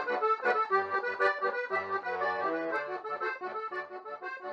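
Instrumental music led by an accordion, playing a melody over chords and slowly fading down.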